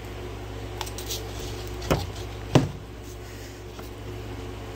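Two sharp knocks about half a second apart, the second louder, over a steady low hum.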